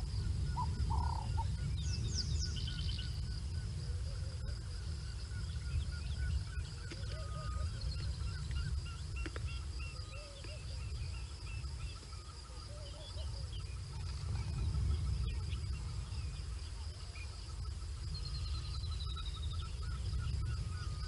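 Several wild birds chirping and calling at intervals, with a quick descending trill near the end, over a steady high-pitched whine and a constant low rumble.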